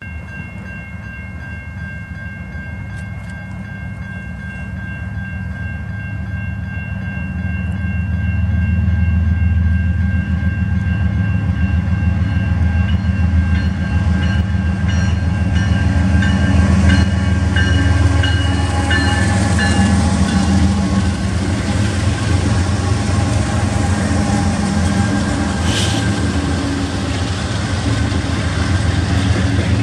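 A BNSF intermodal train behind GE ES44C4 and Dash 9-44CW diesel locomotives approaches and passes: the lead locomotive's horn sounds a steady multi-note chord through about the first half, over a diesel rumble that builds until about eight seconds in and stays loud. In the second half the locomotives and the first intermodal cars roll past with loud rail and wheel noise.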